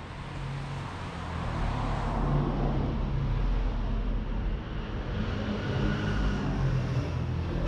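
Street traffic: a motor vehicle's engine running close by, growing louder about two seconds in and staying steady, over general road noise.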